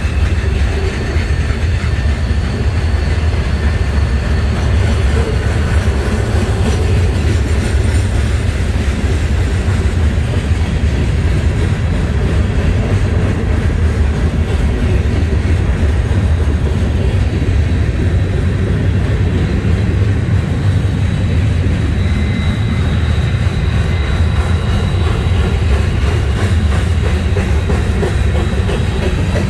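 Freight cars of a CSX manifest train rolling past: a steady, loud rumble of steel wheels on the rails.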